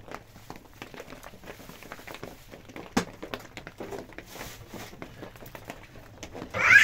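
Quiet rustling and small irregular clicks of handling, with one sharper click about three seconds in. Near the end a loud voice breaks in.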